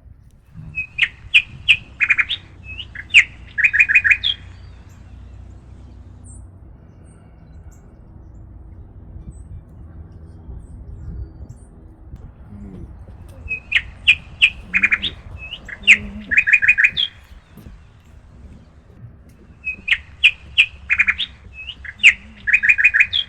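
A songbird singing the same short song three times, several seconds apart, each a quick run of loud, sharp whistled notes.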